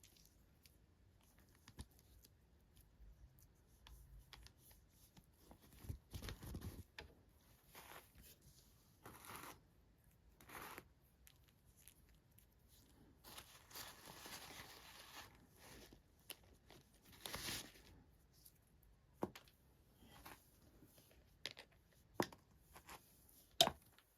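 Toy packaging being handled and opened: intermittent tearing and rustling of paper and plastic, with a longer stretch of tearing about halfway through and several sharp clicks near the end.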